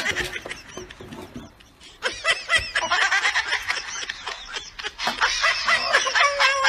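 Laughter: many quick, high-pitched laughs in rapid succession, starting about two seconds in.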